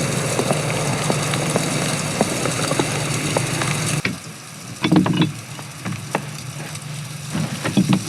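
Blizzard wind and blowing snow hissing over a steady low hum. About four seconds in it gives way abruptly to a quieter space with a few knocks and bumps of movement.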